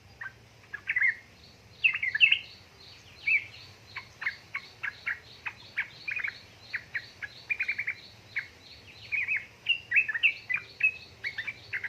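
Yellow-vented bulbul (trucukan) singing a fast, chattering run of short, sharp notes in quick bursts. A faint, evenly spaced series of higher notes runs behind the song.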